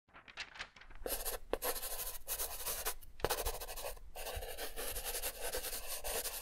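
Pen scratching across paper in a run of quick strokes with a few brief breaks: a handwriting sound effect.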